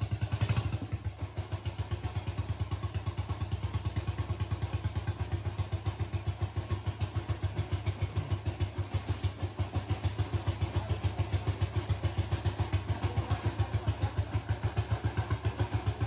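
Small 200 cc Bernard single-cylinder diesel engine running at a steady idle, thumping evenly on each firing stroke.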